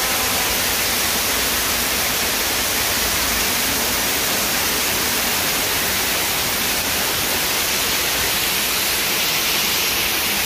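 Man-made waterfall pouring down artificial rock and splashing into a shallow pool below: a steady rush of falling water.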